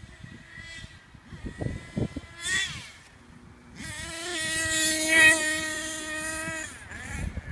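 HPI Savage radio-controlled monster truck running: a brief rising rev about two and a half seconds in, then from about four seconds a loud, steady high-pitched motor whine at speed that falls away near the end.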